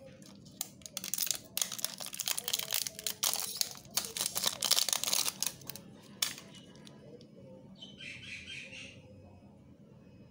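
Clear plastic shrink-wrap crinkling and tearing as it is stripped off a small plastic pill bottle, a dense irregular crackle lasting about five seconds. A brief high-pitched twittering follows about eight seconds in.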